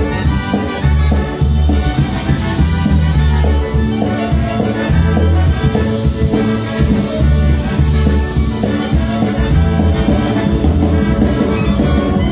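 Live polka band with brass playing an instrumental tune, with a steady beat carried by the low notes.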